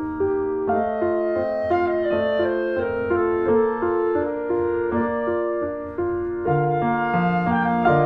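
Background music led by piano, a tune of notes changing about every half second, with held low woodwind-like notes joining about six and a half seconds in.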